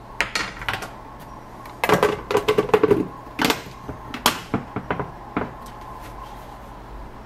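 Plastic snap-lock lid being set on a glass food-storage container and pressed down: a string of sharp plastic clicks and taps, densest around two to three seconds in, with a few single clicks after that.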